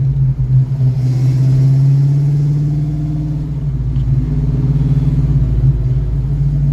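Ford Mustang 5.0's V8 engine running steadily.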